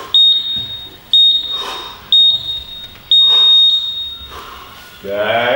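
Digital gym interval timer beeping a countdown: three short high beeps a second apart, then one longer beep marking the end of the work round.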